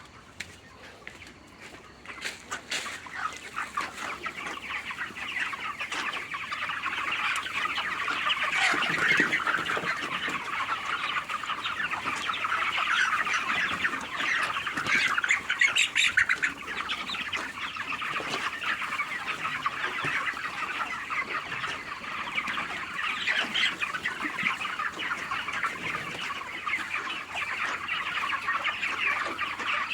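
A flock of chickens clucking and calling all at once, a dense continuous chatter that swells over the first few seconds and then holds steady.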